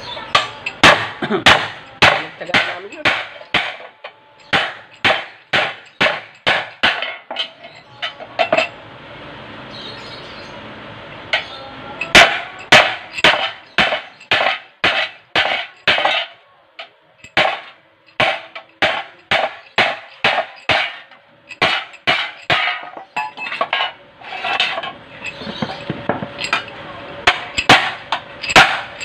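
Hammer blows on a galvanized iron sheet, folding its edge over a block: sharp metallic strikes at about two a second, with two pauses of a few seconds, about a third of the way in and again just past the middle.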